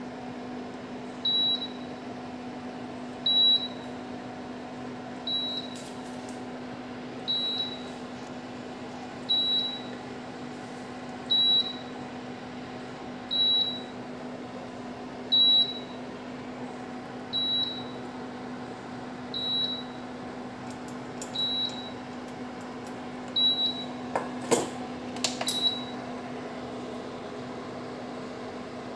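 An appliance's fan hums steadily, with a short high beep repeating every two seconds about a dozen times: the pan-removed warning of an induction cooktop while its pan is lifted off to pour. Near the end a few sharp metal clinks come as the pan is set back down, and the beeping stops.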